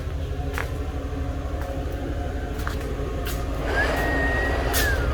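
A steady low mechanical drone with a fast, even pulse, like a motor running. About four seconds in, a brief high whistle-like tone rises, holds and falls away, and there are a few faint light clicks.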